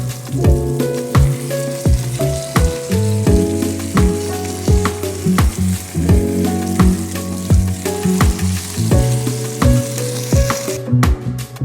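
Pork rack pan-frying in oil and butter, a steady hissing sizzle that drops out briefly near the end. Background music with a steady beat plays over it.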